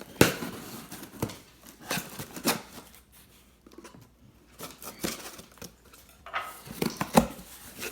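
A shipping box being opened by hand: tape tearing, packaging rustling, and a series of sharp knocks and clicks as the flaps and contents are handled.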